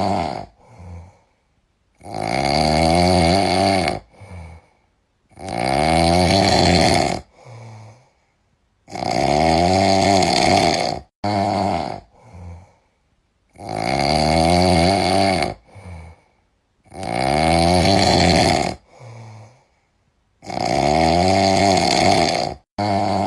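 Heavy snoring in a steady rhythm: six long snores on the in-breath, each about two seconds, roughly every three and a half to four seconds. Each snore is followed by a short, softer out-breath.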